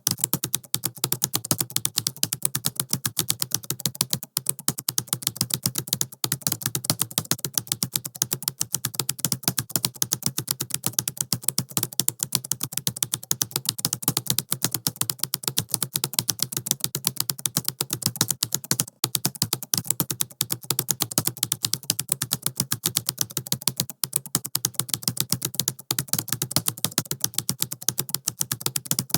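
Fast typing on a laptop keyboard: a rapid, unbroken stream of key clicks.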